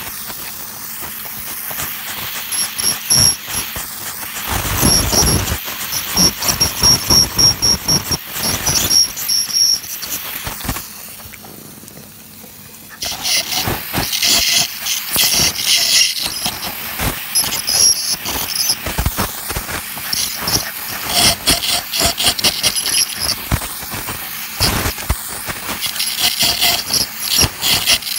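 Ultrasonic dental scaler cleaning tartar off a dog's teeth: the hiss of its water spray and a high whine that comes and goes in short spells, with scraping clicks as the tip works against the teeth. It goes quiet for a couple of seconds near the middle.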